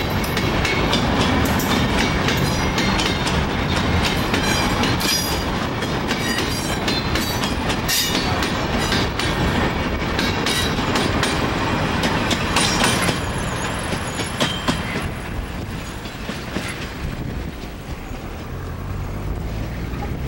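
Empty grain hopper cars and boxcars of a freight train rolling past close by, their wheels clattering over the rail joints and the level crossing in a dense run of clicks. About two-thirds of the way through, the last cars go by and the clatter fades as the train draws away.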